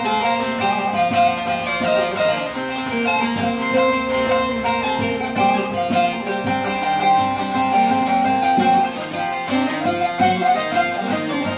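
Short-neck bağlama with a 40-stave mahogany bowl being played, a melody of plucked strings. About nine and a half seconds in, it gives way to a smaller long-necked saz with a brighter sound.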